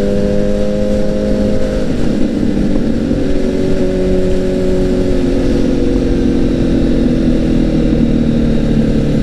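Honda CBR1000RR's inline-four engine running while riding, its note steady at first and then falling slowly in pitch through the second half, over a rush of wind noise.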